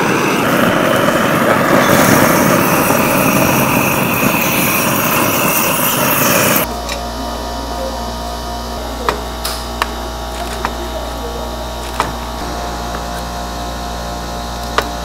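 A gas-cartridge blowtorch burning with a steady, loud hiss that cuts off suddenly about six and a half seconds in. After that comes a low steady hum with a few sharp taps.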